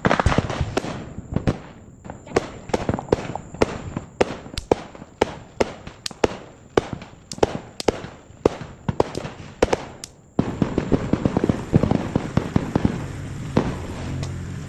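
Small consumer fireworks popping and crackling in quick, irregular bursts of sharp cracks, several a second. About ten seconds in the sound changes abruptly to a denser crackle.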